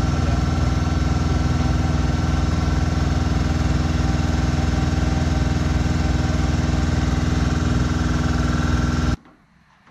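A motor running steadily at a constant speed, like an engine idling, that stops abruptly about nine seconds in.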